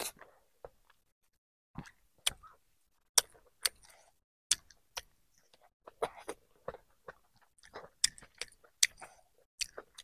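Mouth sounds of someone eating chicken curry and rice by hand: short, sharp lip smacks and chewing clicks, about one or two a second, with short quiet gaps between.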